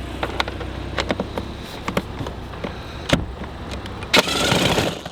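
Sharp metallic clicks and clinks of a 10 mm socket and loosened bolts being handled while a truck's air filter housing is unbolted, the loudest about three seconds in, then a short rasping noise about four seconds in.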